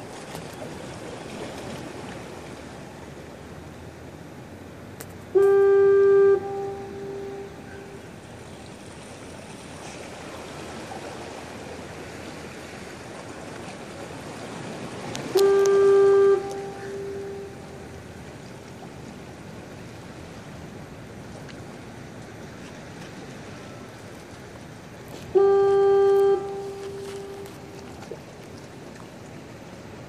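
King Harbor breakwater foghorn sounding three single blasts about ten seconds apart. Each is one steady tone lasting about a second, fading out over the next second or two.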